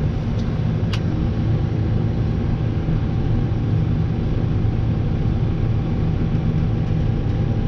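Tractor engine running steadily, with a single sharp click about a second in.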